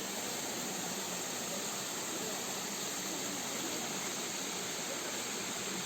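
Steady rush of a waterfall, an even hiss with no breaks.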